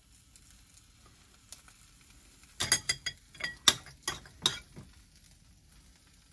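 Metal kitchen tongs clinking against a ceramic bowl and a stainless steel frying pan while spaghetti is lifted from one to the other. After a quiet start comes a quick run of about eight sharp clinks over two seconds.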